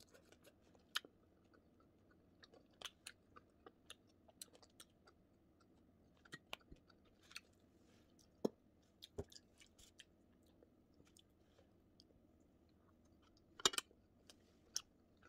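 Faint close-up chewing of crispy fried fish, with scattered small crunches and clicks. A louder cluster of crunches comes near the end.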